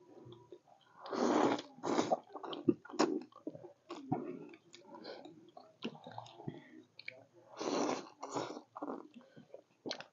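Two people eating close to the microphone: chewing and biting on buffalo bone, meat and noodles, with many short wet clicks. There are two longer slurps, about a second in and near eight seconds.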